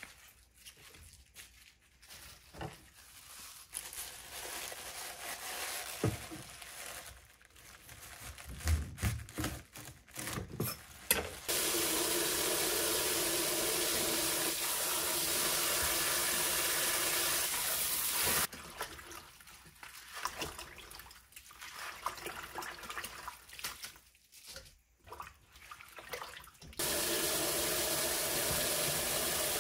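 Crisp snapping and light knocks as spring cabbage leaves are broken off and handled on a wooden cutting board. Then a kitchen faucet runs into a stainless-steel bowl in the sink as the leaves are rinsed. The water stops for several seconds of splashing and handling, and starts again near the end.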